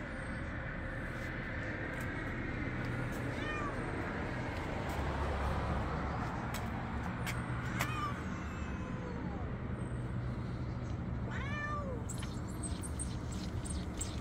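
Domestic cat meowing about four times, each call a short falling cry, over a steady low background hum.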